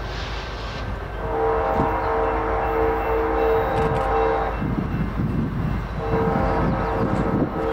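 Horn of an approaching BNSF SD70ACe diesel locomotive sounding two long blasts. The first starts about a second in and lasts about three seconds. The second starts about six seconds in and is still sounding at the end. A steady low rumble of the train lies under it.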